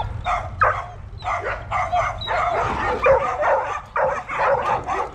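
A pack of dogs barking and yipping excitedly, their calls overlapping without a break.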